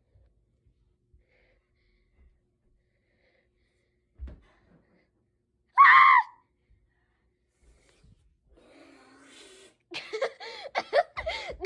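Hushed for about four seconds, then a soft thump, then one short, loud, high-pitched shriek from a child about six seconds in. From about ten seconds on, a child's quick breathy gasps and giggles come in choppy bursts.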